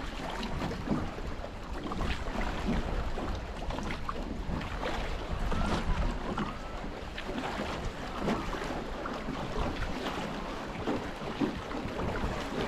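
Water splashing and lapping around a small rowed tour boat, with irregular small splashes and knocks, and wind buffeting the microphone.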